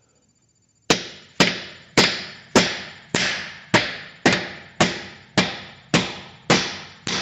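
Hammer striking a piece of poplar wood held against a Chevy Tahoe's rear differential pinion yoke, tapping the yoke back onto the pinion shaft. Steady blows at about two a second start about a second in.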